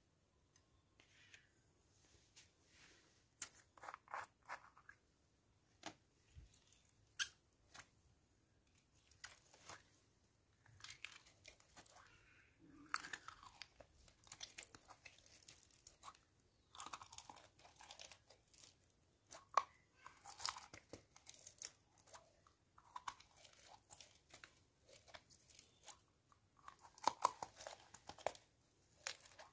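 Pink slime worked by hand in a small glass jar and on a glass platter: irregular sticky crackles and squishes, with sharp clicks here and there.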